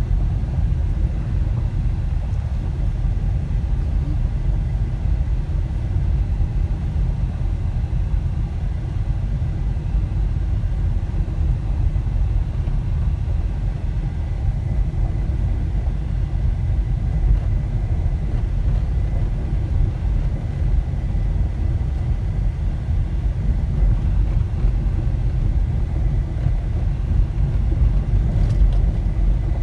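Steady low rumble of a car driving on a gravel road, tyre and road noise with the engine underneath, heard from inside the cabin.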